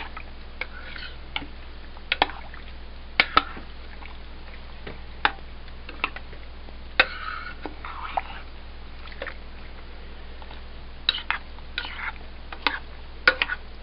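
Stirring a thick, wet casserole mix of rice, frozen vegetables, cubed turkey and cream of mushroom soup in a crock pot. Soft wet stirring sounds are broken by sharp, irregular clinks of the utensil against the pot.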